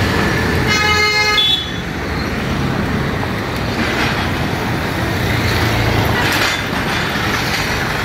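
Street traffic and a vehicle engine running close by, with a car horn tooting once for about a second near the start.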